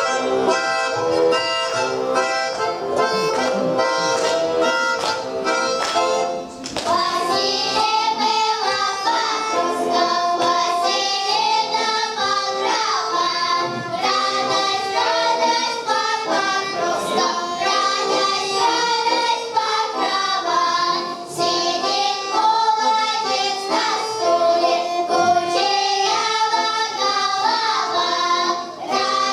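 A Russian folk song: accordion-like instrumental playing for about the first six seconds, then voices singing the melody over the accompaniment.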